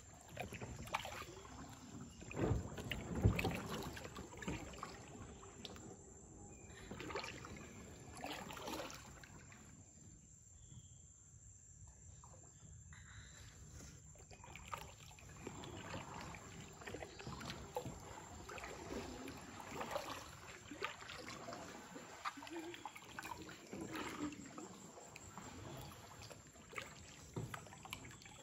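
Kayak paddle strokes in calm, shallow water: the blade dipping and water dripping off it at an uneven pace, loudest a few seconds in, with a quiet pause partway through.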